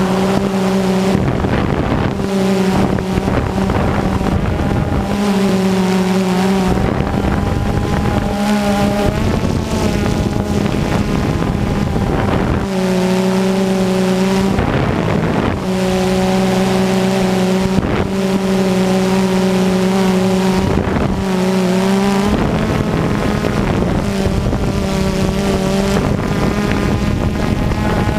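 Multirotor camera drone's electric motors and propellers buzzing steadily, the pitch dipping and rising every few seconds as it manoeuvres. Wind noise on the microphone.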